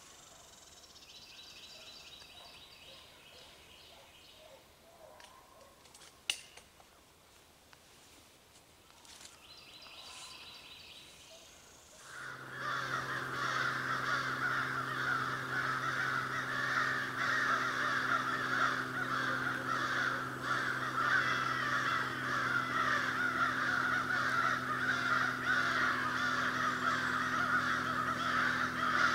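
A crowd of American crows starts cawing loudly and continuously about twelve seconds in, after a quiet stretch with faint bird chirps and a single sharp click. The din is crows mobbing a barn owl perched in a tree.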